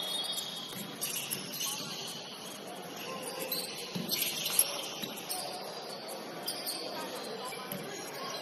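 Basketball game sounds on a gym court: sneakers squeaking in short high chirps, with players' voices in the background and a sharp knock about halfway through.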